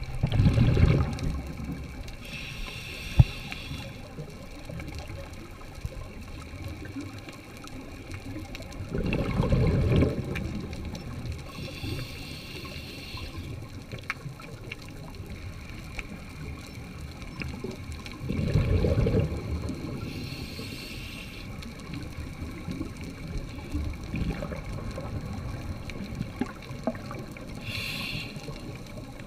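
Scuba diver breathing through a regulator underwater. Exhaled bubbles rumble out about every nine seconds, and each is followed a couple of seconds later by a short hiss of inhaling.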